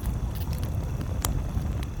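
Campfire crackling: a few sharp pops, the loudest just over a second in, over a steady low rumble.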